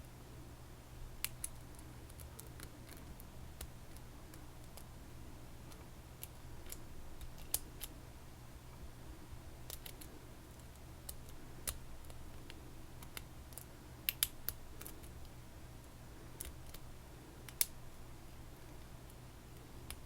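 Scattered small, sharp metallic clicks and ticks of lock picks working inside a Stanley padlock, a few louder snaps among them, over a steady low hum.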